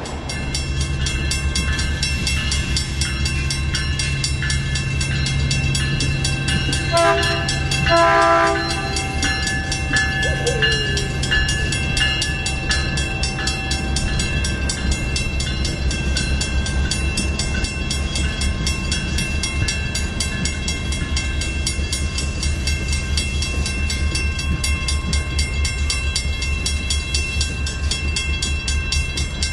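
Caltrain commuter train rolling past a grade crossing, its wheels rumbling and clattering steadily over the rails while the crossing's warning bell rings. The train's horn sounds in two short blasts about seven and eight seconds in.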